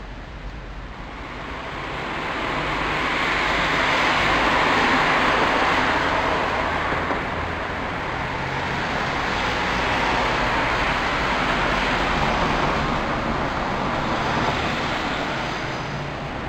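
Road traffic: cars passing on a city street, their noise swelling and fading away twice.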